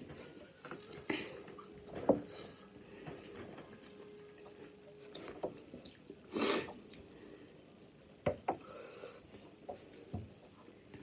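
Quiet eating sounds from a seafood boil: chewing, lip smacks and sauce-covered fingers, with scattered small clicks and one short breathy noise about six and a half seconds in, the loudest sound.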